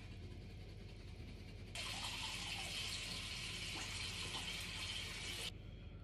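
Bathroom tap turned on, running into the sink for about four seconds, then shut off abruptly.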